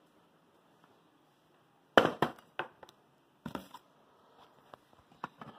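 Kitchen handling clatter from a large white plastic tub being moved about: a few sharp knocks and clacks about two seconds in, another about three and a half seconds in, then a few light taps.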